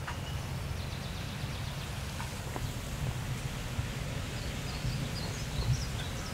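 Outdoor park ambience: a steady low rumble with faint bird chirps in the second half.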